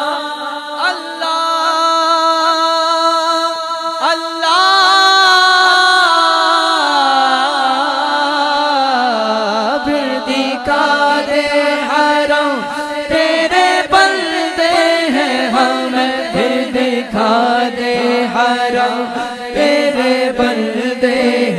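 Male voice singing a naat without instruments in long, drawn-out melismatic lines, with other voices chanting behind it. From about ten seconds in, many sharp knocks or claps come in under the singing.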